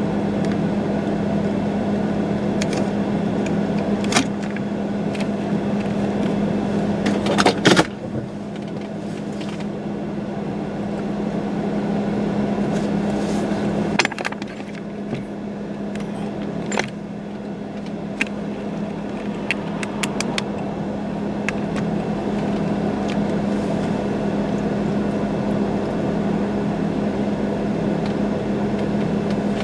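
Steady hum of an idling vehicle, with scattered clicks and a brief cluster of louder knocks about eight seconds in.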